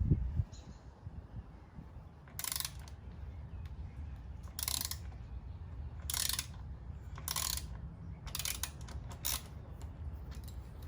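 A ratchet wrench clicking in short runs as the chain-adjustment bolts on a motorcycle are loosened, about six strokes spaced a second or so apart and bunching up near the end. A thump comes at the very start.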